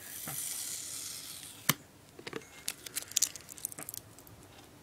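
Packing tape being picked at and peeled off a cardboard box by hand: a drawn-out tearing hiss for about a second and a half, a sharp snap, then a scatter of small clicks and crinkles.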